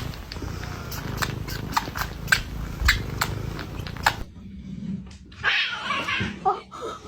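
A domestic cat purring in a low, steady rumble with sharp clicks over it for about four seconds, then a short, rough cat cry about a second later.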